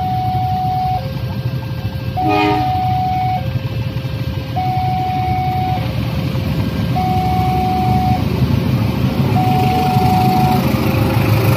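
Level-crossing warning alarm sounding a steady two-tone electronic chime, high and low tones alternating about every second. A short horn toot cuts in about two seconds in. The low running of waiting vehicles grows louder near the end as the diesel locomotive of the commuter train arrives.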